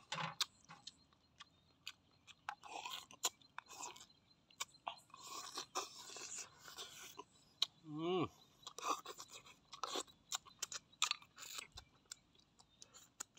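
Close eating sounds of a person eating snail curry by hand: sucking and slurping snail meat and sauce from the shells, chewing, lip smacks and finger licking, in many short irregular bursts. About eight seconds in, a short falling hum of the voice.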